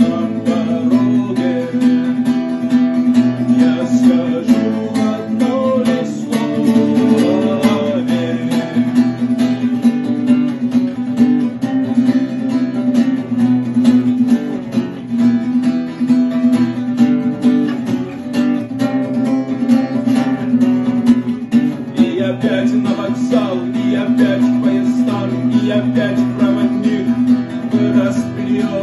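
Acoustic guitar playing an instrumental passage, strummed and plucked, with percussive knocks on the guitar's body marking the beat.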